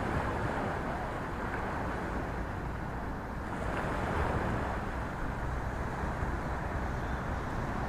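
Steady rushing noise of water and wind, mostly low and even, with no distinct events.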